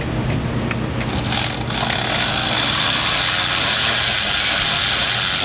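A few light clicks, then a small power tool motor starts about a second and a half in and runs steadily, likely driving a fastener at the coolant housing.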